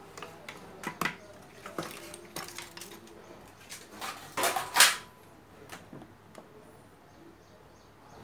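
Clicks and knocks of small hard objects, tools and electronic parts, being handled and set down on a wooden workbench. The loudest knocks come together about four and a half to five seconds in.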